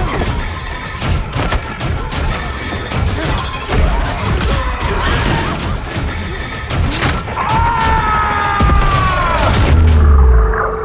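Loud film action mix: tense music under a string of crashes and impacts, a falling screech from about halfway to near the end, then a heavy low boom that gives way to a steady hum.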